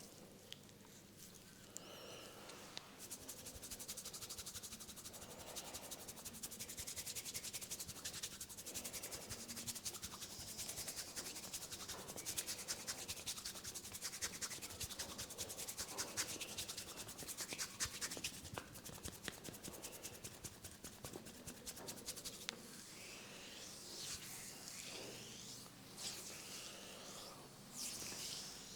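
Fingers rubbing briskly through hair on a scalp during a head massage, a dense crackling rustle that starts about three seconds in. Near the end it eases into slower, separate sweeping strokes.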